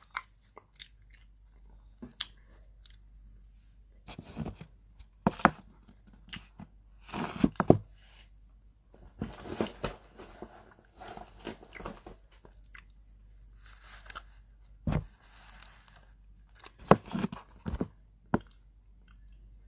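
Close-up chewing and crunching of food, in irregular bursts, with a few short sharp clicks in between.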